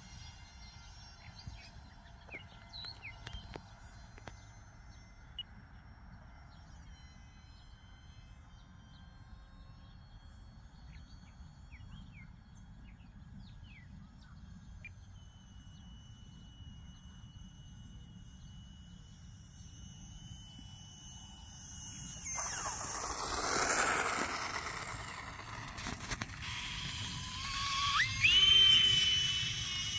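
Twin electric ducted fans of an E-flite UMX A-10 model jet. First a faint, thin steady whine, then a loud rushing whoosh that swells and fades as the jet comes low. Near the end a whine rises sharply in pitch and holds as the fans spool up.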